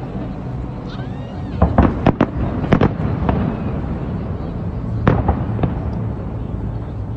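Aerial fireworks going off: a quick run of sharp bangs from about one and a half to three and a half seconds in, and a few more about five seconds in, over a steady low rumble.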